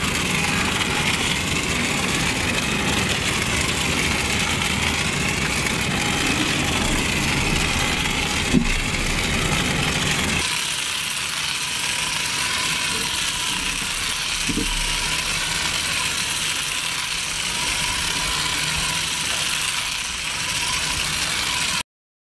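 Battery-operated toy helicopter's small 1.5-volt motor running steadily, spinning the main rotor as the hanging toy circles on its thread. It cuts off suddenly near the end.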